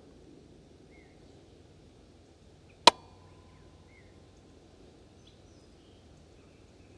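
A single gunshot from a .50 Beowulf (12.7x42) AR-15 rifle about three seconds in, sharp and loud, with a thin ringing tone lingering for a second or so after it.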